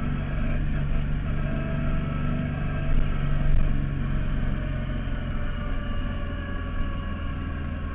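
Yamaha V-Star 1100 Classic's air-cooled V-twin engine running steadily at road speed, heard from on the bike with wind rushing over the microphone; the engine note swells briefly about three seconds in.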